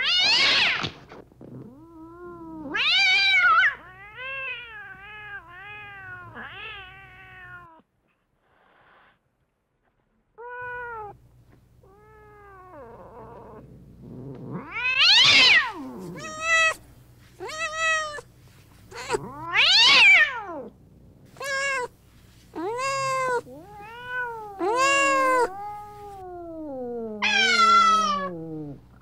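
Domestic cats meowing over and over: a string of calls of varying length and pitch, some loud and high, others short and soft. A gap of about three seconds of silence comes about eight seconds in, and near the end one long meow falls in pitch.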